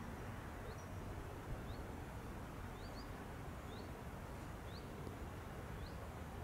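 A small bird repeating a short, high, upward-sliding call about once a second, faint over a steady low rumble and hiss of background noise.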